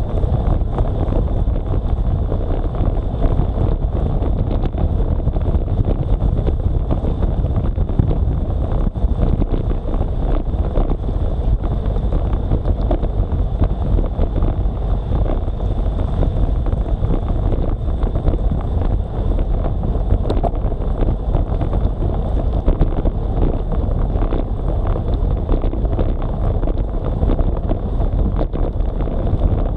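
Wind buffeting the microphone of a bike-mounted action camera while riding at about 30 km/h, a loud steady rumble with a faint high whine.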